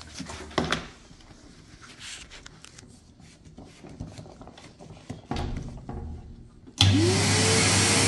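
A few faint plastic knocks as a hose is fitted into a toy Henry vacuum cleaner. Near the end the toy vacuum is switched on and runs with a steady hum, its whine rising as the motor spins up.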